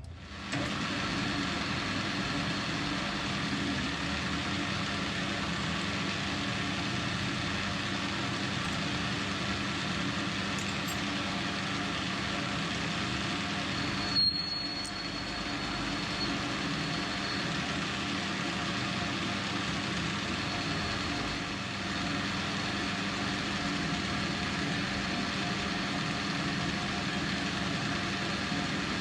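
AL960B metal lathe running steadily, its motor and gearing giving a constant hum with several pitches, while a taper is turned on a 4140 steel part with the compound rest. About halfway through there is a short sharp peak with a brief high whine.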